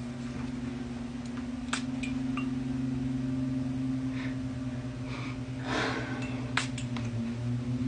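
A perfume atomizer is sprayed in a few short hisses, the loudest about six seconds in. A steady low hum runs underneath, with a few faint clicks.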